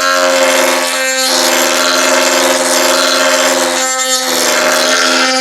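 Dremel rotary tool running on low speed with a steady whine. Its bit grinds against the edge of a plastic RC car body in three passes, with short breaks about a second in and about four seconds in.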